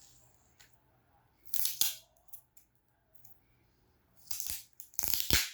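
Sticky tape being picked at and peeled off its roll: three short rustling rasps, the last two close together near the end.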